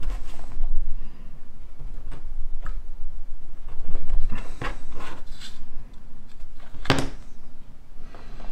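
Handling noise on a work desk: scattered small knocks and clicks of tools and parts being moved, the loudest about seven seconds in, over a low rumble.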